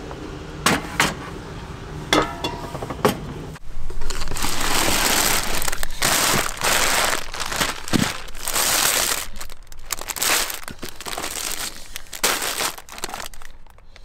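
Plastic bags rustling and crinkling as a hand rummages through a wooden storage drawer. A few sharp knocks and clicks come in the first few seconds, then dense, steady crinkling runs through most of the rest.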